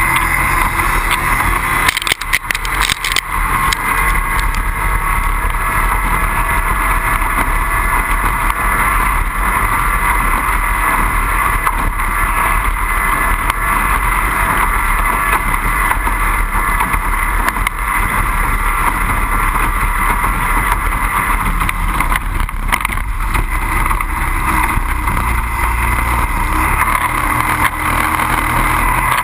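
Racing boat's 25 hp outboard motor running at high, steady revs, with a short cluster of knocks about two seconds in.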